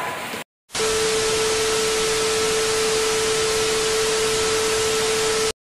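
TV static sound effect: an even hiss of white noise with a single steady tone under it, starting suddenly a little under a second in and cutting off suddenly near the end.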